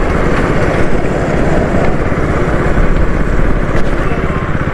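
Motorcycle engine running steadily while riding at road speed, with wind and road noise on the microphone.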